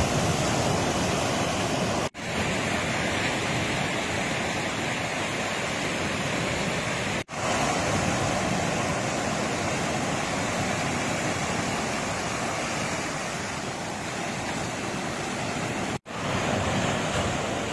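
Sea surf breaking and washing up the shore in rough post-storm water, a steady rushing roar. The sound cuts out for an instant three times.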